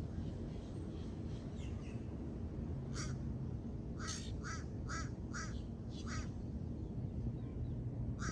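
Duck quacking in a series of short calls, about seven in all, starting about three seconds in, over a steady low rushing noise.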